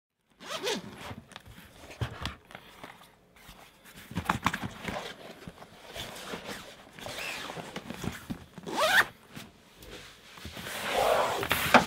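A zipper being pulled several times among handling and rustling noises, with one quick rising zip about nine seconds in.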